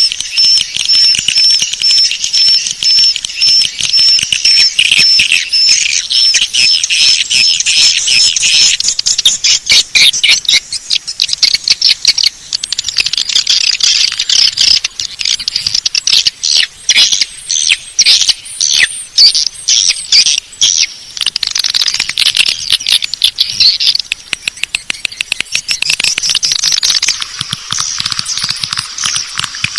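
Swiftlet call recording: dense, high chittering and twittering of swiftlets, a lure sound for drawing swiftlets into a nesting house. A fast, even run of high pips sounds over the twittering for about the first nine seconds, then gives way to rapid clicking and chirping.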